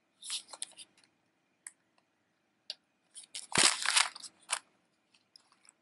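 Paper rustling and crinkling in short bursts as a card and envelope are handled, loudest about three and a half seconds in, where there is also a soft thump.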